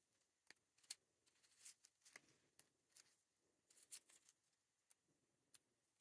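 Very faint, scattered crinkles and crackles of a clear plastic cello bag and paper pieces being handled as ephemera is slipped inside, otherwise near silence.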